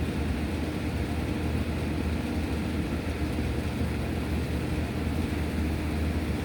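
CNC router machining a guitar body, running with a steady mechanical hum and hiss.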